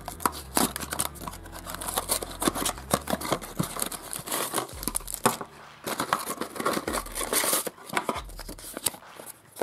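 Small cardboard sweet box being torn open by hand and its contents handled: a dense run of tearing, rustling and crinkling.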